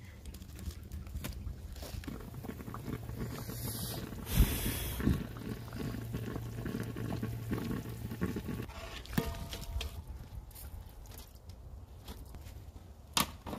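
Duck broth boiling in a cast-iron gamasot cauldron, with two sharp knocks a little over four and five seconds in.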